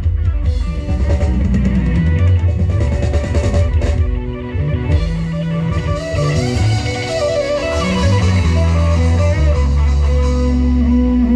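Loud live band music with electric guitar and drum kit, played through a Thai sound truck's stacked SR18 bass cabinets and TD-112 mid cabinets, with very heavy bass. The music dips briefly about four seconds in.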